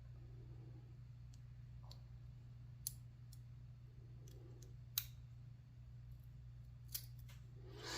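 Sparse, faint small metal clicks and ticks from lock pins, springs and tools being handled while a Lockwood 334 lock cylinder is reassembled, with three sharper clicks about two seconds apart. A steady low hum lies underneath.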